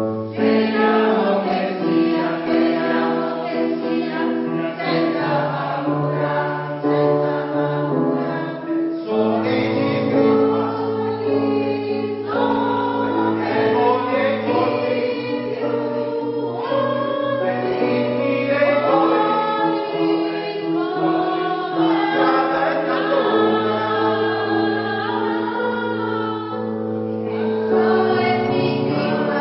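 Polyphonic choir singing in several parts, with long held low notes beneath moving upper voices.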